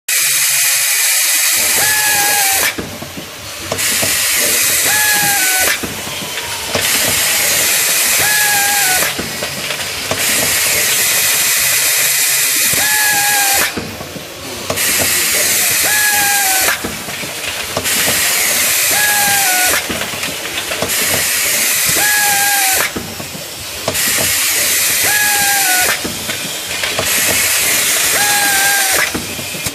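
Automatic linear capping machine running through its cycle: a loud steady hiss that dips briefly about every three seconds, with a short squeak once in each cycle.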